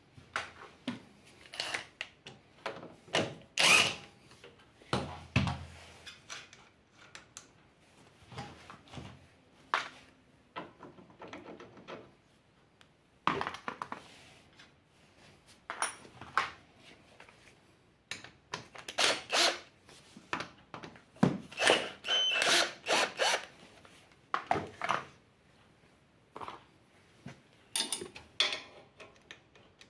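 Hand tools being handled at a motorcycle engine: irregular metallic clicks, knocks and rattles, with a thump about five seconds in and a busy run of clicking about two-thirds of the way through.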